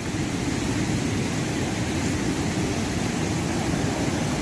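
Steady rushing of the Bow River's whitewater rapids, an even noise that swells a little right at the start and then holds.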